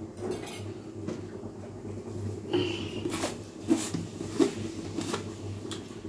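Several short clinks and knocks of steel kitchen vessels and lids being handled on a stovetop, one with a brief metallic ring, over a steady low hum.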